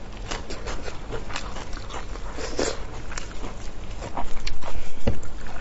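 Close-miked eating sounds of spicy pork elbow: wet biting and chewing of the skin and meat, with sticky squelches of plastic-gloved hands on the sauce-covered joint. The clicks and smacks grow louder about four seconds in.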